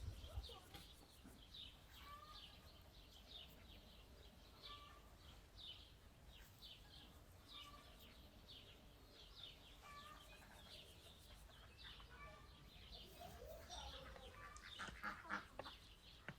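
Faint chirping of small birds: many short, high chirps repeated over and over, with a few lower calls in between.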